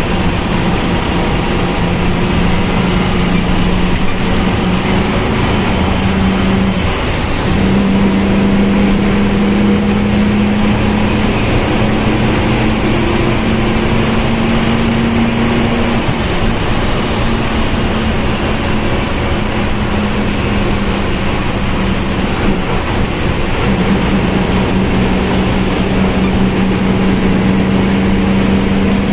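Volkswagen Volksbus 17.230 OD bus under way, its engine running with the transmission growling: a steady whining tone over the engine and road noise. The tone steps up in pitch about a quarter of the way in, drifts slightly higher and back down, and breaks off briefly about three quarters of the way in before coming back.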